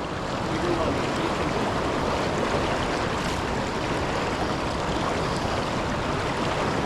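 Steady rush of river water pouring over a waterfall, a continuous, even noise.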